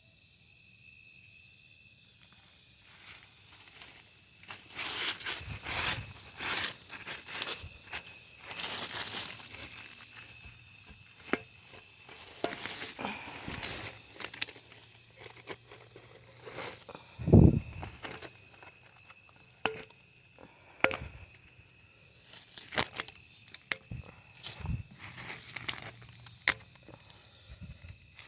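Leafy vines being pulled and torn away by hand, with bursts of rustling and ripping and one heavy thump about two-thirds of the way through. An insect chirps in an even pulse underneath.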